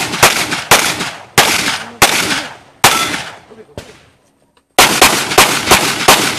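Handgun shots fired in quick succession on a practical pistol stage, about ten in all, each followed by a fading echo. About two-thirds of the way through there is a break of roughly a second before the firing resumes.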